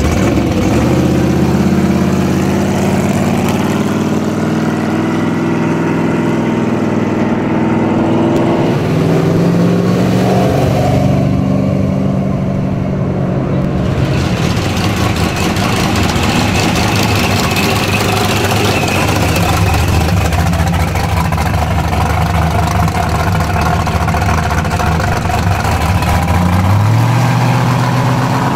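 Engines and exhausts of classic American cars rumbling as they cruise slowly past: a late-1960s Chevy Nova, then a Chevy II station wagon, then a second-generation Camaro. The engines run at low revs, with a rev near the end.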